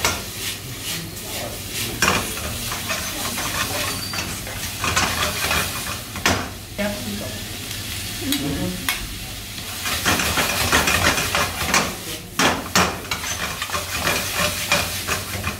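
Meat and onions stir-frying in a wok over a high gas flame: steady sizzling, with a metal ladle clattering and scraping against the wok again and again.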